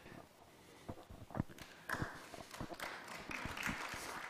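An audience starts to applaud after a talk: a few scattered claps, then fuller clapping about two seconds in. The applause is faint and steady.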